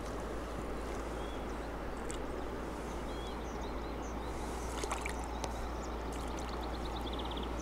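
A hooked crucian carp splashing at the surface close to the bank, with a few sharp splashes about five seconds in, over a steady wash of moving water. Small birds chirp now and then, and a short run of rapid ticks comes near the end.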